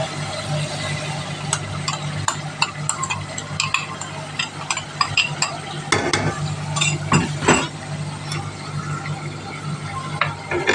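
A metal ladle stirring chicken masala frying in an aluminium pot, with many short clicks and scrapes of metal on the pot, busiest midway. A steady low hum runs underneath.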